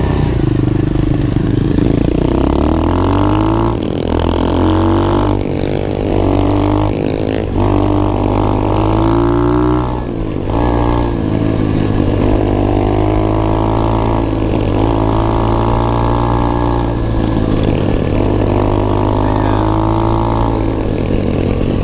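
Single-cylinder four-stroke engine of an SSR 125 pit bike, heard from on board while riding hard. The engine note repeatedly climbs under throttle, then breaks off and drops at gear shifts or throttle lifts, about a dozen times.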